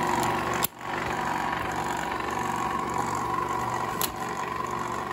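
Bell & Howell FilmoSound 16mm projector running on its newly replaced drive belt: a steady mechanical hum with a constant high whine, dropping out for a moment about two-thirds of a second in, with a small click near the end.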